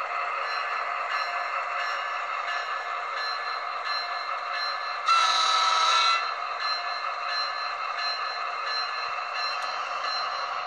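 HO scale Atlas ALP-45DP model locomotive running slowly along its track, giving a steady running sound with faint regular clicks. About five seconds in comes a loud one-second horn blast.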